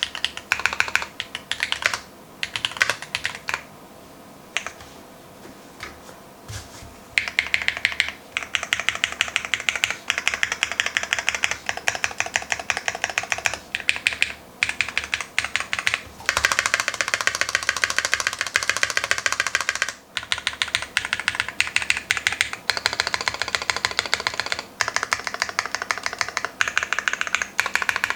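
Typing on a custom mechanical keyboard with lubed Glorious Holy Panda tactile switches, GMK keycaps and a foam-filled case: fast, dense runs of key clacks. A few seconds in, the typing thins to a few scattered keystrokes for about three seconds, then picks up again.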